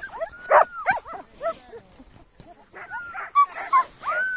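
Sled dogs barking, yipping and whining in short, overlapping calls, with one longer whine near the end.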